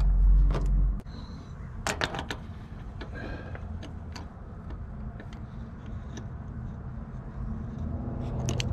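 Scattered light clicks and taps of hand tools and braided oil lines against metal while the adapter is worked into place under the engine, over a steady low hum. A heavy low rumble fills about the first second.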